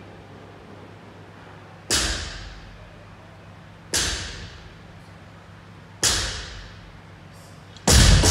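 A barbell loaded with bumper plates set down on the floor in four thuds, one about every two seconds, as deadlift reps. Each thud dies away over about a second, and the fourth is the loudest.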